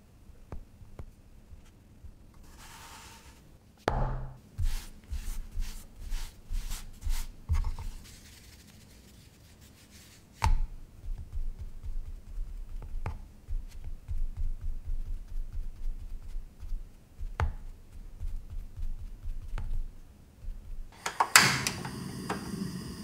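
Metal fork tines pricking rolled pizza dough against a wooden board: a run of quick taps about two a second, then a longer stretch of soft, rapid tapping with a few sharper knocks. Near the end, a louder clatter with a ringing tail.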